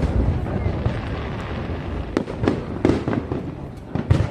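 Aerial fireworks going off: sharp bangs over a continuous low rumble. The bangs come in a burst of several about halfway through and again near the end, after a quieter moment.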